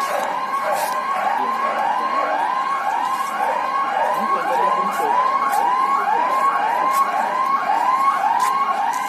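Electronic siren sounding in fast repeating sweeps, each rising and falling in pitch, about two a second.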